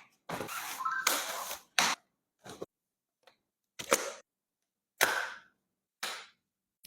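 Stroller frame being handled: a series of separate sharp clicks and clacks from its latches and joints, about one a second.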